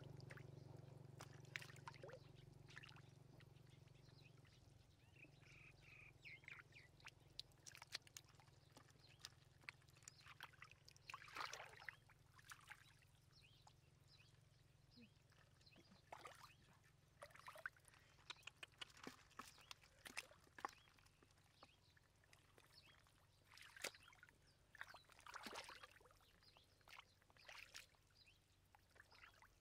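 Faint, irregular splashes and squelches of hands groping through shallow muddy water.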